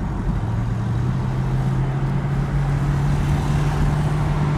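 2015 Chevrolet Camaro engine and road noise heard from inside the car under light acceleration, the engine note rising slowly in pitch as speed builds.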